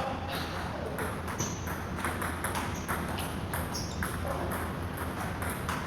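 Table tennis balls being struck by paddles and bouncing on the table: a steady run of sharp, irregular clicks, with a few brief high squeaks.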